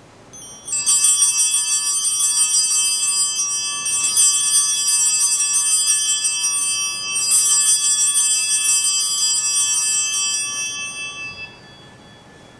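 Altar bells rung three times, each a bright, many-toned ring that hangs on. They mark the elevation of the chalice at the consecration, and fade out near the end.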